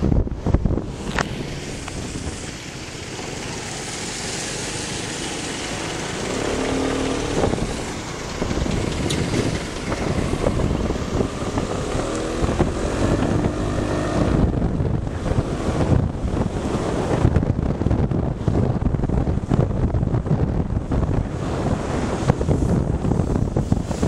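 Wind buffeting the microphone of a moving motorcycle, with engine and road noise underneath. A brief pitched tone sounds about seven seconds in, and another around twelve to fourteen seconds.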